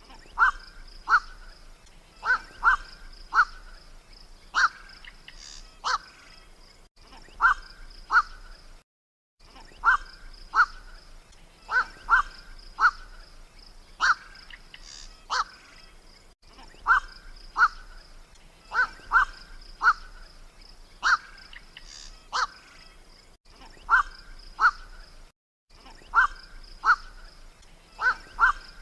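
Black-crowned night heron calls played as a hunting lure: short harsh 'kwok' calls, singly and in quick pairs, every second or two, over a steady high-pitched background trill. The recording cuts out briefly twice, where the loop is spliced.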